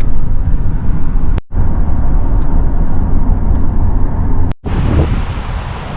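Heavy low rumbling wind buffeting the microphone. It is broken twice by abrupt cuts to silence.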